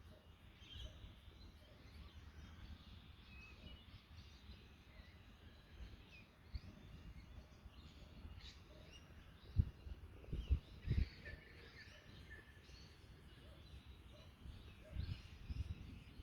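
Wind buffeting the microphone as a low rumble, with a few stronger gusts about ten seconds in. Small birds chirp and call intermittently.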